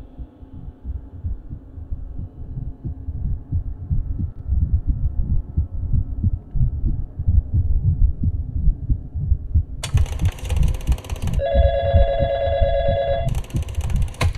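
A low, irregular pounding throb that grows louder, like a heartbeat in the soundtrack. About ten seconds in, a harsh buzzing burst breaks in, then a telephone rings, then the buzzing comes back near the end.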